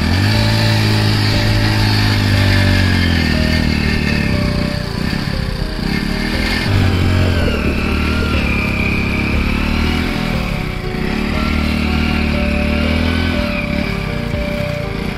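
Motorcycle engine revving in three long surges, the pitch rising and sagging back between them, as the bike strains against the plastic wrapping film wound tightly over it.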